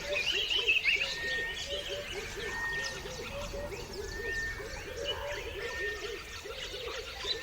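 Several birds chirping and calling together: a rapid run of short chirps throughout, a thin whistled note repeated about once a second, and a warbling song in the first second.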